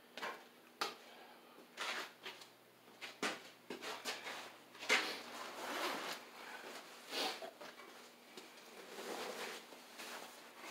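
Irregular clicks, knocks and rustling of a small boiler circulating pump being handled and turned over in the hands, the loudest knock about five seconds in.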